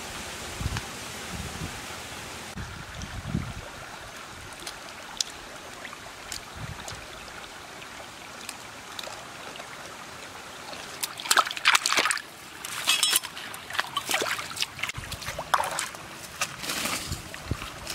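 Shallow stream trickling over rocks, with bursts of splashing in the second half.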